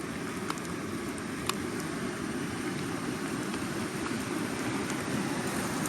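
Steady rush of a river in flood, a low, even roar of fast water with a few faint ticks over it.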